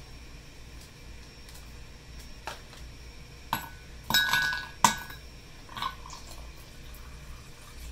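Ice cubes dropped into a glass mug, clinking against the glass a handful of times with a brief ringing, the loudest clinks about four to five seconds in. Near the end, bottled mocha coffee drink is poured over the ice.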